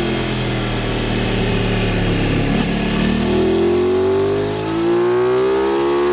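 Aprilia RS660's parallel-twin engine under way, holding a steady note, then accelerating from about three seconds in with its pitch rising. Near the end the pitch and loudness dip briefly, as at a gear change, and rise again.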